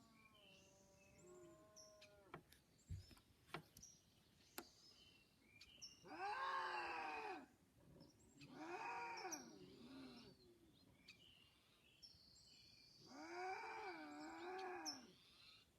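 An unidentified animal giving long, wavering wailing calls that rise and fall in pitch, a sound that seems "painful" in tone. One faint call comes at the start and three louder ones, each about a second and a half long, follow a few seconds apart. Faint bird chirps sound between the calls.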